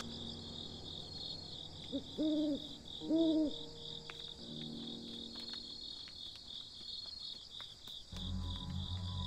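An owl hooting twice, about two and three seconds in, over crickets chirping in a steady, fast pulse. A low musical drone comes in near the end.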